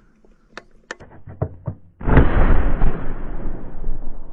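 An RPV-16 thermobaric rocket launcher firing: a few light clicks, then a sudden very loud blast about two seconds in, followed by a rough, sustained rush of noise.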